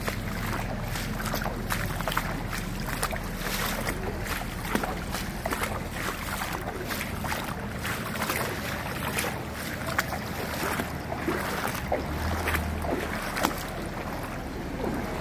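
Rainwater flowing across a flooded paved road: a steady rushing wash with many small splashes.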